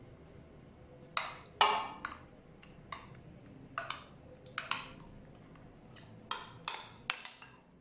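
A spoon tapping and scraping against a glass bowl while scraping thick marinade paste out of it: about a dozen short clinks and knocks at irregular intervals, some ringing briefly, the loudest about a second and a half in.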